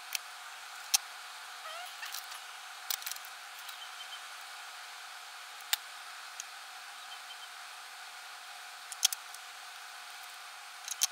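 Small hand tools handled at a workbench: a scattering of short, sharp clicks and taps, scissor snips and tools set down, the loudest about a second in and near the end, over a steady faint hiss.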